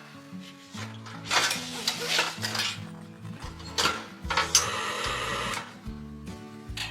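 Clinks, knocks and scrapes of metal cookware and utensils, with a hiss lasting about a second near the middle, over soft background music.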